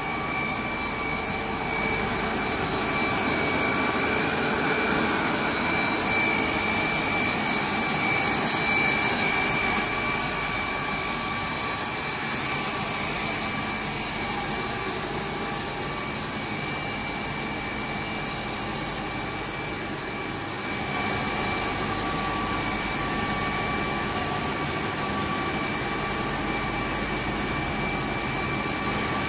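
Breathable PE film cast extrusion line running: a steady industrial din of motors and drives, with a constant high-pitched whine over it.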